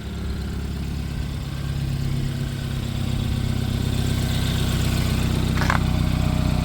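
BMW 328i F30's 2.0-litre turbocharged four-cylinder engine idling steadily, freshly filled with new oil after an oil change.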